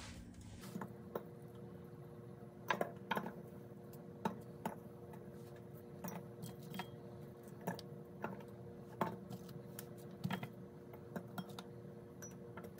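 Light, irregular clicks and taps on glass canning jars as pieces of onion are dropped into them one at a time, over a steady low hum.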